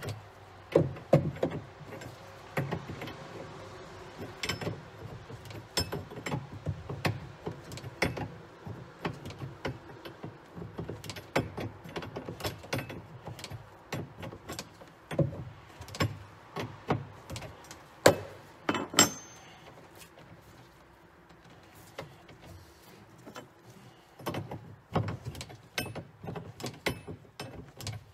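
Metal wrench clicking and clinking irregularly against the brass hydraulic line fittings and bolts of a SeaStar hydraulic steering helm as they are loosened, with handling rustle between the clicks.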